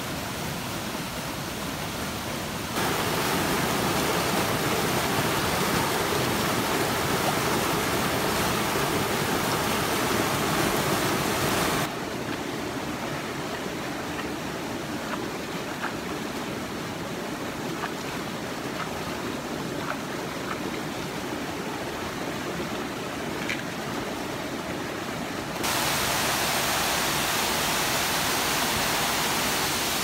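Rushing water of a rocky forest stream, a steady hiss that steps abruptly louder about three seconds in, quieter again near the middle, and louder again near the end. A few faint ticks sound in the quieter middle stretch.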